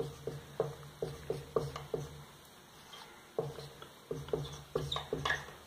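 Marker pen writing on a whiteboard: a run of short taps and scrapes as numbers are written, a few per second, with a pause of about a second near the middle. A faint steady low hum lies under it.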